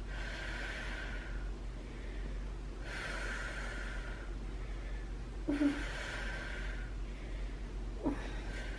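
A woman in labour breathing slowly and deeply: three long breaths, about three seconds apart. A short low vocal sound comes partway through the third breath, and another brief one follows near the end.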